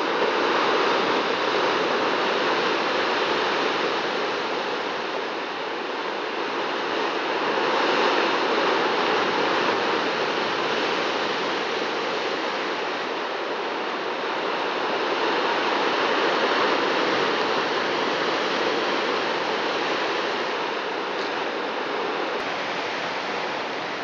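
Black Sea surf breaking on the rocks below, a steady rushing wash that slowly swells and eases every several seconds.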